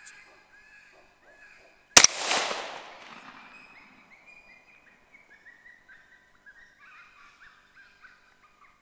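A single AR-15 rifle shot about two seconds in, its echo dying away over a second or so. Short, evenly repeated rising calls keep going underneath before and after the shot.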